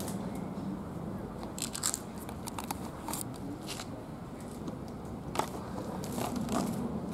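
Dry leaves crackling and crunching underfoot in a few irregular clusters, over steady low background noise.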